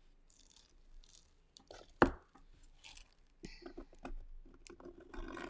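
Quiet handling noises of clay work: a single sharp click about two seconds in, then soft scraping and rubbing in the second half as a needle tool trims the edge of a soft clay slab and hands press on the clay.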